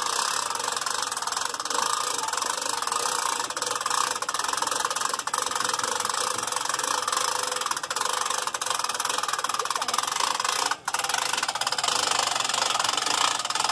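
A vehicle engine idling steadily, with a continuous even running noise.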